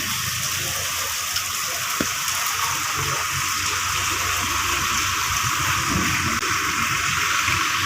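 Steady rushing hiss of water, unbroken and even in level.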